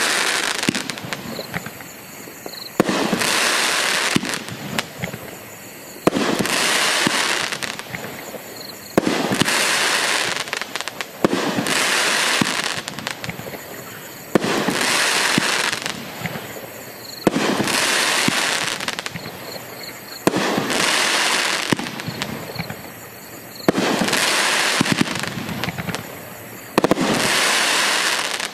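Magnus 'Containment Breach' 500-gram 12-shot firework cake firing, one shot about every three seconds. Each shell breaks with a sudden bang, followed by a second or two of fading crackle.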